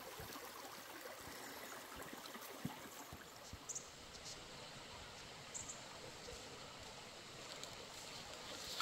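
Steady rush of a stream running over rocks, an even hiss of flowing water with a few faint ticks over it.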